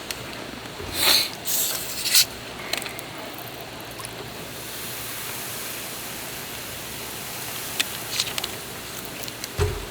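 A steady hiss with a burst of clattering and rustling about a second in, a few sharp clicks near the end and a dull thump just before it ends.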